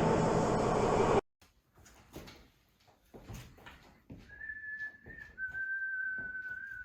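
A loud rushing rumble cuts off abruptly about a second in, followed by faint scattered knocks. Then someone whistles two long steady notes, the second slightly lower than the first.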